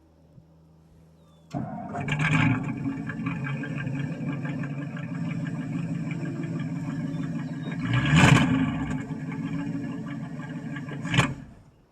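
1963 Ford Thunderbird's 390 FE V8 with a four-barrel carburettor starting about a second and a half in and running, with a surge of throttle about eight seconds in, then a brief burst and dying just before the end. The owner blames an accelerator pump that doesn't work very well.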